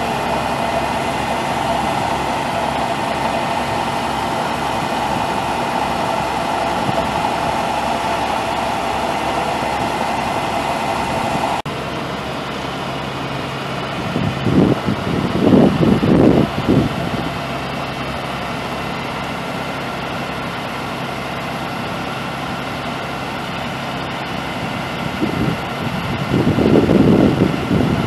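International DT530 inline-six turbo diesel idling steadily. The sound changes abruptly about a third of the way in, and two stretches of louder, irregular noise come over it in the second half.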